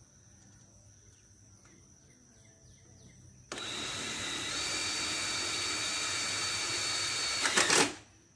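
Faint insect chirping, then about three and a half seconds in a cordless drill starts up, driving a screw through metal roof rake trim. It runs steadily with a high whine for about four seconds, ending in a few short, louder bursts.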